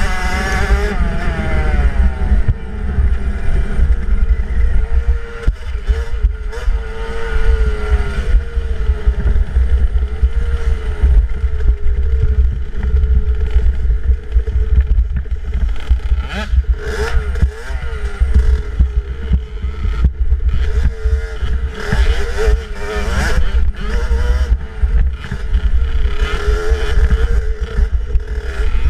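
65cc two-stroke dirt bike engine revving up and down over and over as it is ridden hard over rough ground, with heavy wind rumble on a helmet-mounted microphone and scattered knocks from the bike and trail.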